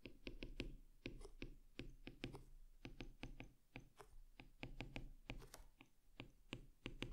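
Faint, irregular clicks of a stylus tip tapping on a tablet's glass screen during handwriting, roughly four taps a second.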